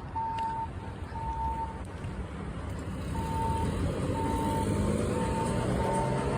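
Building fire alarm sounding, a high electronic beep repeating about once a second. A vehicle engine rumble grows louder in the second half.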